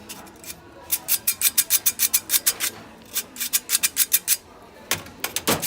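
Hand-squeezed flour sifter being worked, its wire agitator scraping round the mesh in quick rasping strokes, about six a second, in three short bursts.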